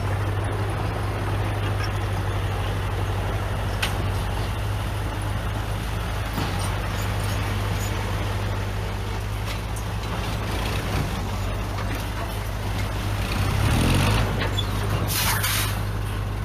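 Heavy diesel engine of earthmoving equipment running steadily, with a brief swell about fourteen seconds in and a short burst of hiss just after.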